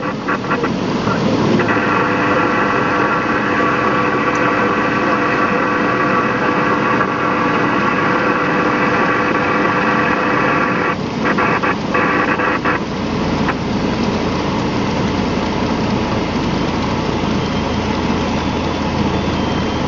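Training aircraft's engine and propeller droning steadily in the cockpit on night final approach. The steady pitched note drops away about 13 seconds in, leaving a lower rumble as the aircraft comes over the runway.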